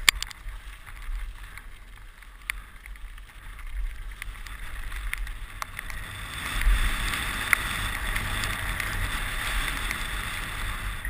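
Mountain bike rolling fast down a dirt track: wind buffeting the microphone, tyre noise on dirt and gravel, and scattered sharp clicks and knocks from the bike over bumps. The rolling noise grows louder about six seconds in.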